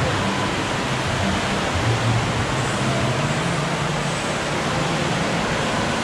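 Water rushing steadily down the start of a fibreglass inner-tube water slide, an even, unbroken gushing.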